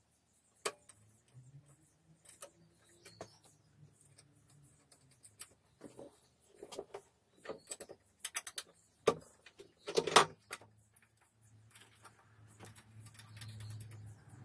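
Small metal parts clicking and clinking against a clutch assembly clamped in a bench vise as it is worked on by hand, in irregular taps with a louder cluster a little past halfway. A faint low hum rises near the end.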